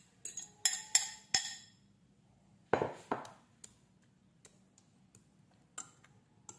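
Kitchenware clinking against a glass baking dish: four sharp, ringing clinks in the first second and a half, two duller knocks about three seconds in, then a few light taps of a fork in the dish.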